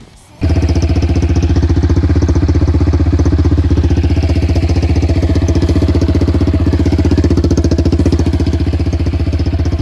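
Sport quad (ATV) engine running loud and steady at an even speed, its rapid firing pulses heard up close. It starts abruptly about half a second in and cuts off at the end.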